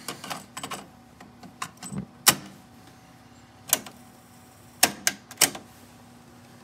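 Mechanical clicks and clunks of a Marantz 5220 cassette deck being loaded by hand: a cassette pushed into the holder and the cassette door shut with a sharp clack about two seconds in, then the deck's piano-key transport buttons clicking down several times near the end, starting playback.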